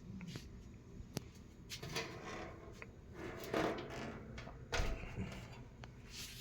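Handling noises from a box fan's plastic switch cover and cabinet being touched: scattered small clicks and light knocks with a few brief scrapes.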